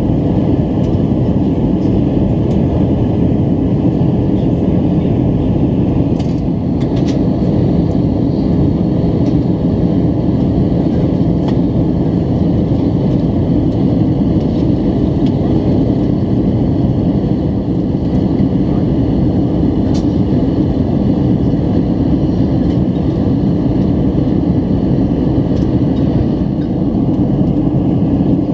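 Steady cabin noise of an Airbus A320 in flight on approach: an even low rush of airflow and engine noise, with a faint steady hum.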